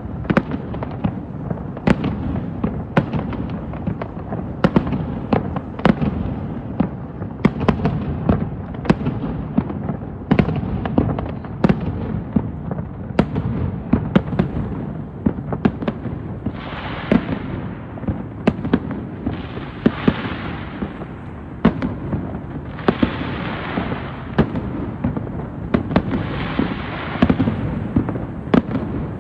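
Aerial fireworks display: a continuous barrage of shell bursts, sharp bangs several times a second over a low rumble of reports. From about halfway, stretches of hissing noise a second or two long come and go between the bangs.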